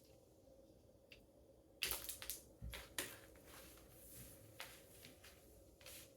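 Homemade crunchy bead slime being worked by hand: a quick cluster of sharp crackling pops about two seconds in as an air bubble in it is squashed, then a few scattered clicks.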